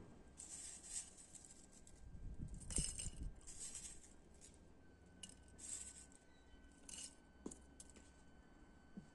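Dried hibiscus flowers tipped from a small glass into a glass teapot: several short, dry rustling pours, with light clinks of glass on glass.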